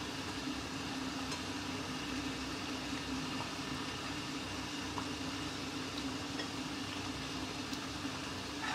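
Chicken masala simmering in a metal pot on a gas burner turned low: a steady, even hiss, with a steady low hum underneath.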